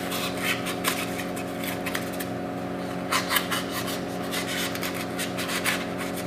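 Knife blade cutting and scraping into a foam fish body: a run of short, irregular rasping strokes as a groove is carved for the cleithrum bone.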